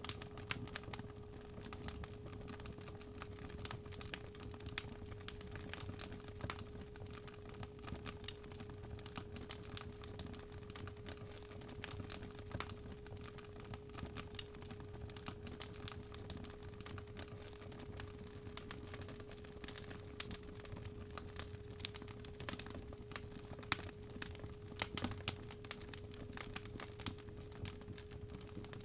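Fireplace fire crackling with irregular small pops and snaps over a low rumble, under a steady 417 Hz pure tone.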